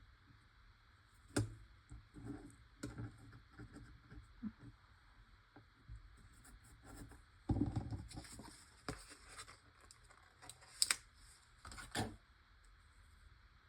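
Hands handling small sticky cardstock pieces: scattered light taps, rustles and scrapes, with a louder rustle about seven and a half seconds in and two sharp clicks near the end.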